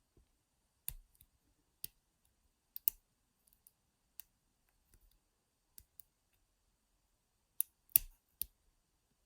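Lock pick and tension wrench working the pins of an all-brass Yale 40mm padlock: sharp, separate metal clicks at irregular intervals of about a second, a quick cluster of three near the end being the loudest.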